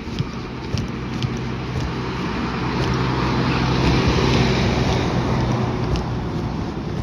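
A motor vehicle passes by: its engine hum and tyre noise build up, peak about four seconds in, then fade away. Footsteps tick along underneath, about two a second.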